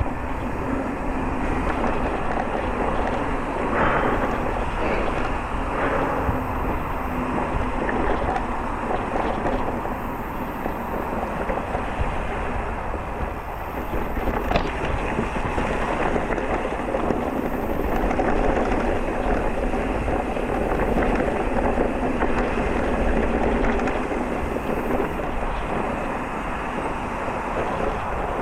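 Electric mountain bike riding over a rough trail: steady wind buffeting on the microphone mixed with tyre noise and the rattle of the bike, with a few brief knocks.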